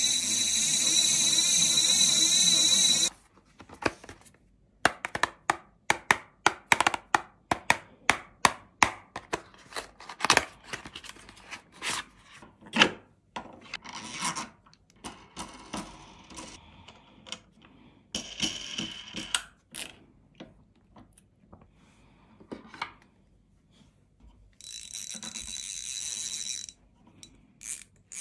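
A hand-cranked fishing line spooling machine. It whirs steadily while being spun fast for about the first three seconds and again for a couple of seconds near the end, as braided line is wound off and onto a spool. In between come many clicks, knocks and rubbing sounds as the spool and knobs on its shaft are handled and tightened.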